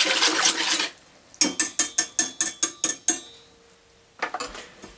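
Wire whisk beating a sauce in a stainless steel bowl, then about ten quick metallic clinks of the whisk against the bowl, about six a second, followed by a faint ring. A few softer clicks near the end as the whisk is laid down on the counter.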